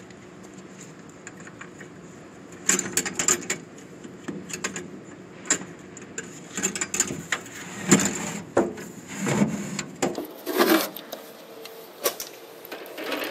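Plastic 5-gallon water jug being handled: a snap-on cap pressed onto its neck and the jug knocked and moved, a run of irregular clicks, knocks and rattles that starts after a few seconds of faint steady hum.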